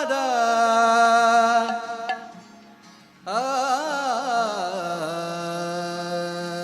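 Wordless Indian devotional vocal opening (alap-style): a held sung note that dies away about two seconds in, then after a brief pause a new phrase with ornamented slides settling into a long held note.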